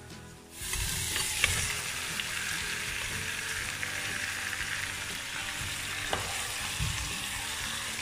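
Mutton frying in hot oil and garlic in a clay handi, sizzling steadily from about a second in, with a few light knocks.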